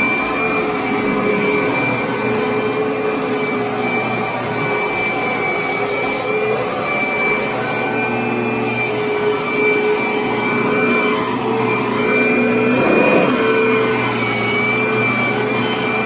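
Upright vacuum cleaner running as it is pushed over carpet: a steady motor hum with a constant high whine above it.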